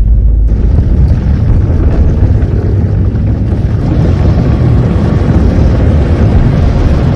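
Explosion sound effect: a loud, continuous rumbling roar with a heavy low end. A hiss fills in on top about half a second in, and it drops off sharply at the end.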